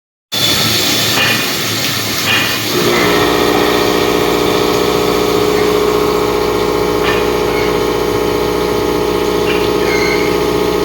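Vertical machining centre (CNC mill) running a milling cut: a noisy rushing sound for the first few seconds, then a steady, even whine with several tones.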